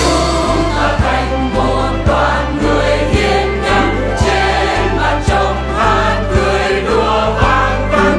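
Background music: a Vietnamese song sung by a choir over a steady bass beat of about two pulses a second.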